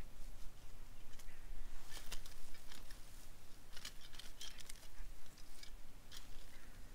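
Small metal-tined hand rake scratching through wood-chip mulch: a series of short, irregular scrapes and rustles as the chips are raked back.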